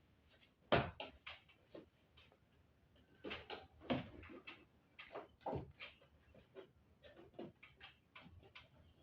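A run of irregular light knocks and clicks from handling and fitting curtain-rail hardware, the strongest a sharp knock about a second in.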